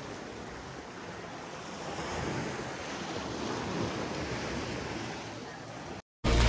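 Steady wash of sea waves with wind on the microphone. It cuts off suddenly about six seconds in, and loud music starts just after a brief silence.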